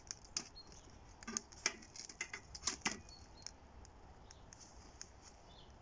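Faint, irregular small clicks and ticks, thickest in the first three seconds and sparser after, as the steel draft tube is fitted onto the smoking charcoal chimney starter.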